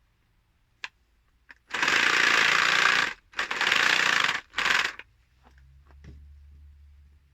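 Power tool cutting through a plumbing fitting in three short bursts, the last the shortest, followed by a faint low hum.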